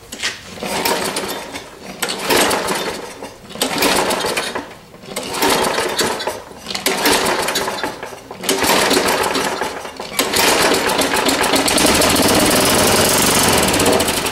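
Tecumseh engine on a Craftsman push mower being pull-started cold: about six short bursts of the recoil starter cranking it over. On the last pull, about ten seconds in, it fires and keeps running on the shot of gasoline squirted into the cylinder, which shows it has spark.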